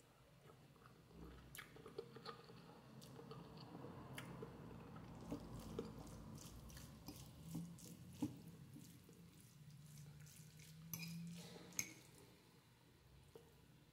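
Faint eating sounds: a person chewing instant noodles, with scattered sharp wet mouth clicks over a low steady hum.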